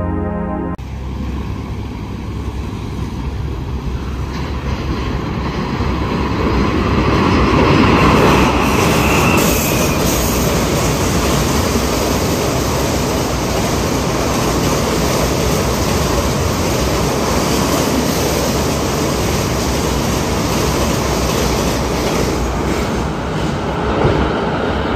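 Duronto Express passenger train running at speed, about 110 km/h, over a steel girder bridge: a continuous rumble and rattle of wheels on rail that swells to its loudest about eight seconds in, then holds steady.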